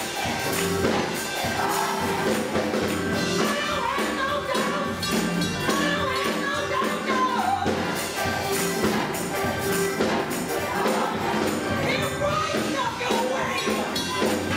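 Gospel choir singing with band accompaniment and steady percussion, a lead voice bending its pitch over the choir.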